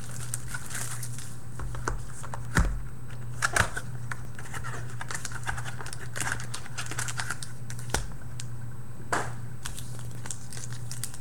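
Crinkling and rustling of card-pack wrappers and packaging as a Crown Royale football card box is opened and its packs and cards handled, with a few sharp knocks of cards and box on the table, the loudest about two and a half and three and a half seconds in. A steady low hum runs underneath.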